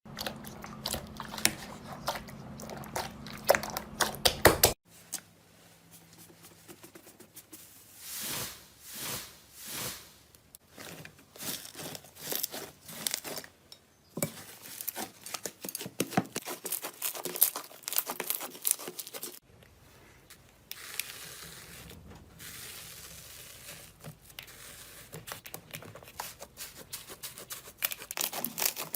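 Slime being handled close to the microphone in a run of short clips: crisp crackling and popping clicks as it is pressed and poked, dense at first, then sparser, then dense again. Near the end comes a steady soft crinkling, tearing hiss.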